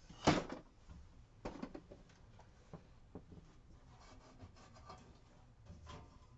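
Hands working a Miwa DS lock apart: a sharp knock about a quarter second in, another about a second and a half in, then scattered small clicks and scraping of metal lock parts being handled.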